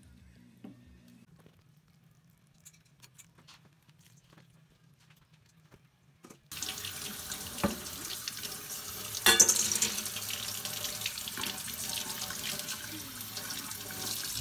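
Tap water running into a stainless steel kitchen sink, starting suddenly about halfway through, with a couple of sharp knocks soon after it starts. Before that, only faint small ticks of hands sorting wet seeds.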